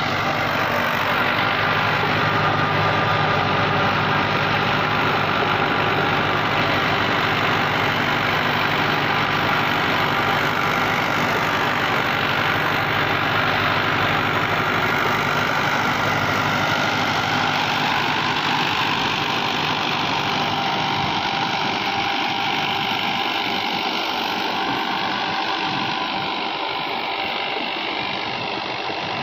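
Mahindra Arjun 555 Power Plus tractor's diesel engine running steadily under load while it drives a 7-foot Sonalika rotavator tilling through the soil. The sound eases slightly near the end as the tractor moves away.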